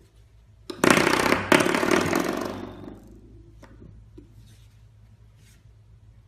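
Spring door stopper flicked by a puppy, twanging with a buzzing ring: struck sharply about a second in and again half a second later, then dying away over a second or so, with a few small taps afterwards.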